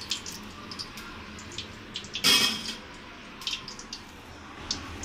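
Hot oil in a kadai sizzling and crackling steadily as kofta deep-fry, with many small pops. A brief, louder burst comes a little over two seconds in.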